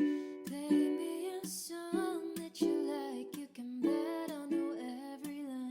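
Background music: strummed ukulele chords with a melody sung or hummed over them.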